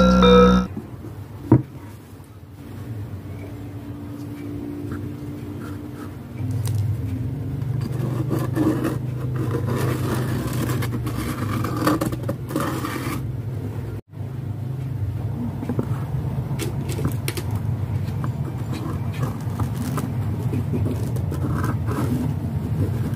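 Light scraping and handling clicks from a pen being traced around a speaker driver on a fibreboard panel, over a steady low rumble that gets louder about six seconds in.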